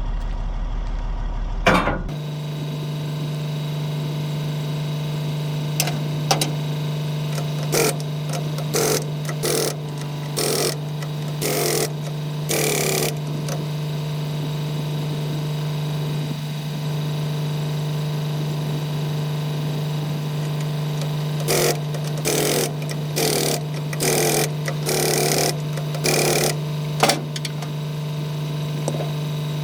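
Pneumatic impact wrench tightening trailer wheel lug nuts, going off in short bursts of about half a second to a second, two clusters of several each, over a steady engine hum.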